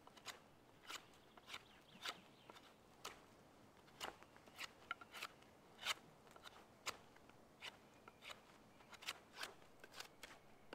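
Knife whittling a wooden stick: a run of short, crisp shaving cuts, roughly two a second at an uneven pace.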